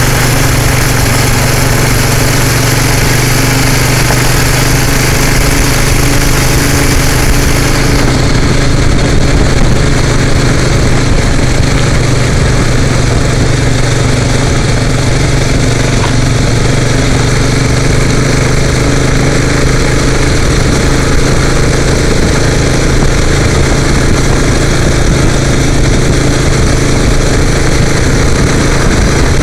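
Motor vehicle engine running steadily at an even pitch while driving along a gravel road, with tyre and wind noise.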